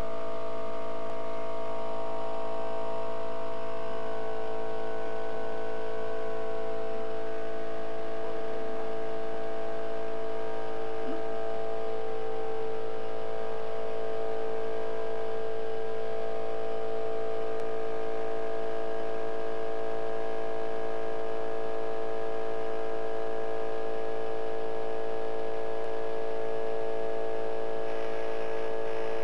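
Engine-number marking machine clamped on an outboard motor's block, running with a steady electric hum and buzz while it stamps the number.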